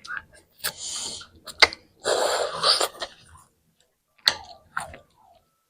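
Eating sounds close to the microphone: chewing and mouth noises in short hissy bursts, with a few sharp clicks.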